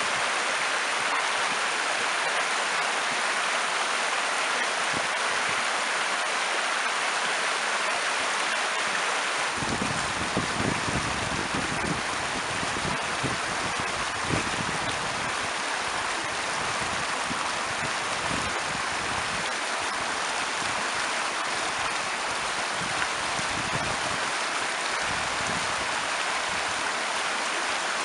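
River water flowing over rocks with a steady rushing. About a third of the way in, deeper gurgling and splashing join in and carry on to the end.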